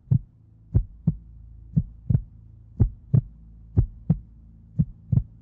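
Slow heartbeat sound effect: paired low thumps (lub-dub) about once a second over a low steady hum.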